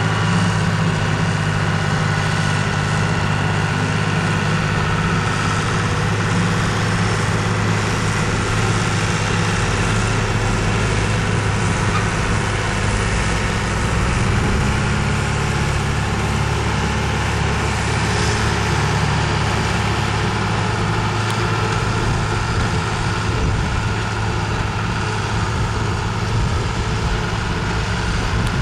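Farm tractor diesel engine running steadily while working a trailed forage harvester that picks up, chops and blows grass into a trailer. The engine note shifts a few times.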